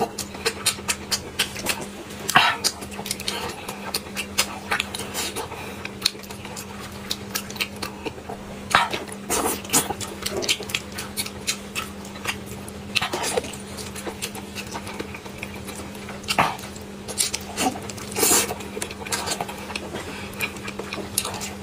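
Close-miked eating sounds of a person chewing whole spicy octopus: irregular mouth clicks and smacks, a few louder than the rest, over a faint steady low hum.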